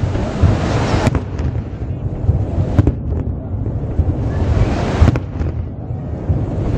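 Fireworks shells bursting: three main bangs roughly two seconds apart, each with a short echoing tail, over a steady low rumble.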